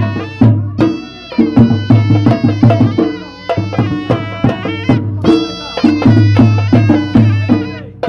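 Traditional folk music: a dhol drum beaten with sticks in a steady, driving rhythm of deep thumps and sharper rim strokes, with a wind instrument playing a sustained melody over it.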